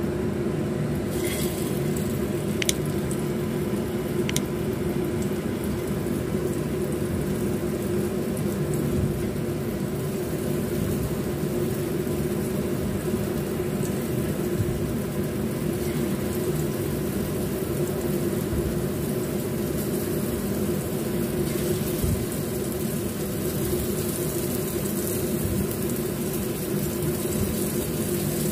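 A steady, low mechanical whirring hum, with a few faint clicks in the first few seconds.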